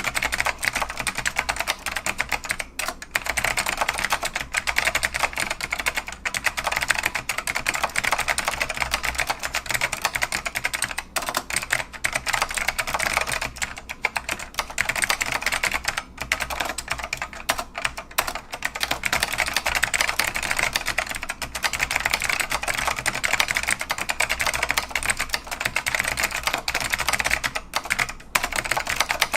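Northgate OmniKey Evolution mechanical keyboard with white Alps switches, typed on fast and continuously: a dense run of crisp key clicks with only brief pauses here and there.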